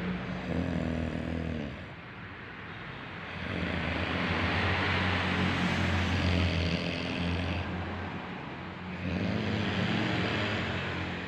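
A pregnant woman snoring in her sleep: a low, droning 'wur wur' snore that swells and fades with each breath, a few breaths over several seconds.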